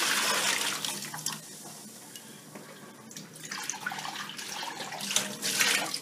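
Tap water running into a stainless steel kitchen sink. It is strongest for about the first second, drops back, then picks up again over the last few seconds.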